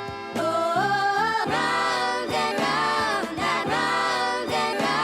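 Music: a choir-style sung vocal with held and sliding notes, getting louder about half a second in.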